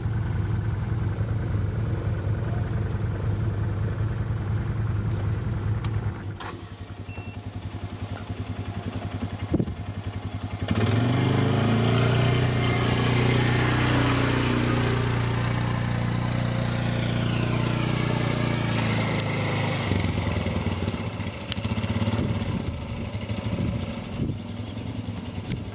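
ATV engine running through a deep water crossing. A steady engine hum drops away about six seconds in, and a sharp click follows a few seconds later. A louder, steady engine note then runs for about ten seconds, with a falling whine partway through, before easing back to a quieter run.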